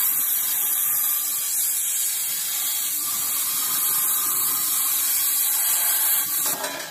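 CNC plasma torch cutting a turning steel tube: the arc gives a loud, steady, high hiss, which falls away near the end.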